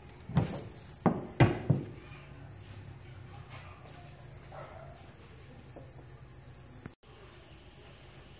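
A cricket trilling in a steady, high, pulsing tone, which breaks off for a moment about two seconds in. In the first two seconds, four sharp knocks as the grass trimmer's handle and lock knob are handled.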